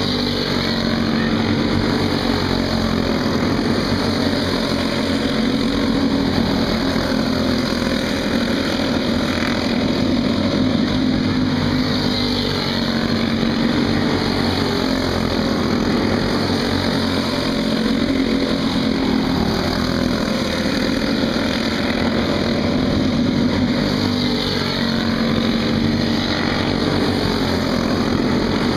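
Several racing go-kart engines running hard together, their pitch rising and falling as the karts accelerate, lift for corners and pass.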